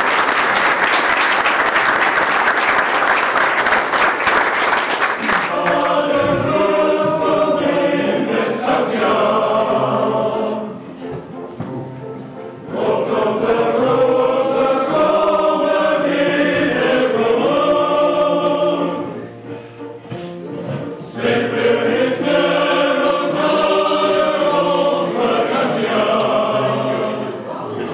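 Applause for about the first five seconds, then a men's chorus sings in several long phrases with short breaks between them.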